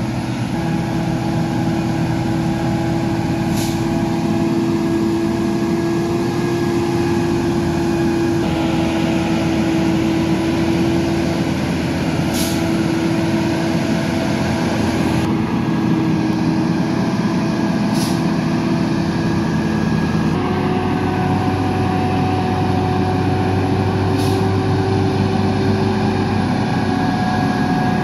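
Heavy diesel truck engine running steadily, its pitch shifting slightly a few times. Brief sharp hisses come every six seconds or so.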